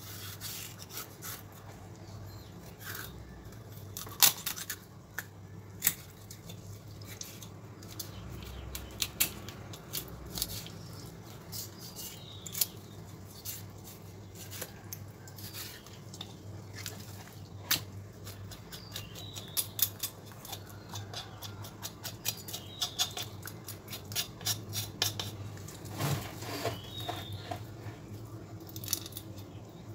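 Kitchen knife slicing through a small tilapia on a wooden chopping board: irregular crisp clicks and scrapes as the blade cuts along the scaled back and bones, with occasional knocks of the knife on the board.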